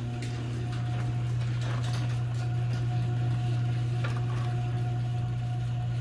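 Electric garage door opener running steadily as the sectional door rolls closed along its steel tracks, with only faint scattered roller ticks. No thumping or clicking at the track joint: the realigned track now lets the rollers pass smoothly.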